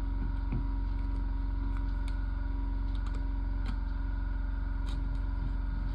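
A steady low electrical hum with a few faint, scattered clicks and taps of wires being handled at the terminals.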